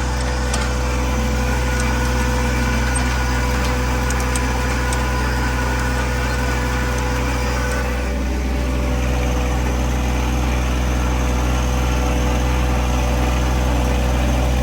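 Engine of a four-wheel-drive field vehicle running steadily under load while crossing a food plot, dipping briefly about halfway through and then a little louder.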